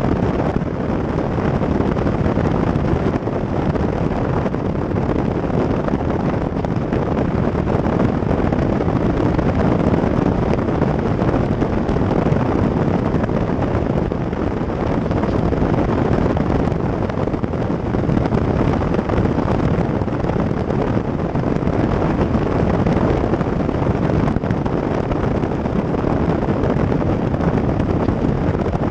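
Steady wind noise buffeting a microphone mounted on the outside of a car driving at road speed, mixed with tyre noise on the asphalt; even and unbroken throughout.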